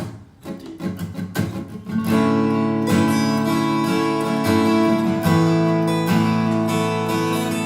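Acoustic guitar strumming: a few short strokes, then full chords ringing on from about two seconds in.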